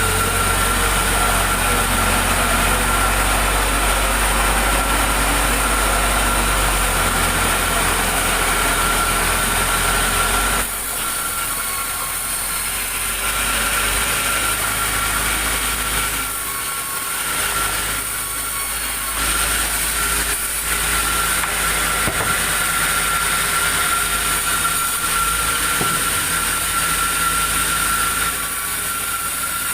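Sawmill machinery running steadily with a constant high whine over a low hum; the sound drops and shifts abruptly about a third of the way in and several more times.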